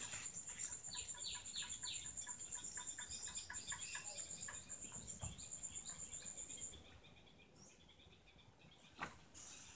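Background birdsong: a high, rapidly pulsing trill that stops about seven seconds in, with short falling chirps over it, and a single sharp click near the end.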